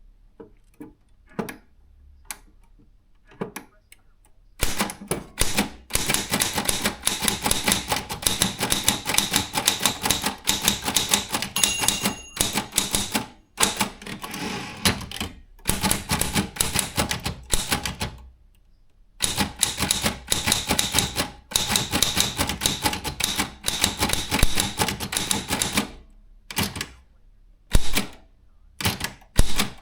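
Brother Chevron/Olympia B12 typewriter being typed on: a few scattered keystrokes, then long runs of fast, continuous typebar strikes broken by short pauses, ending with a few single strokes.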